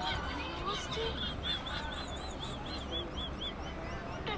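Trackside ambience beside stationary passenger trains: a steady low hum with faint distant voices, and a quick run of about ten high chirps in the middle.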